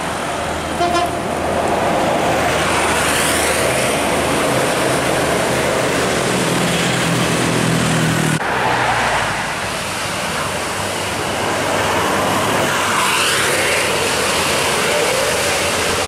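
Tour coach driving past with engine and tyre noise and a horn sounding over the traffic. The sound changes abruptly about eight seconds in.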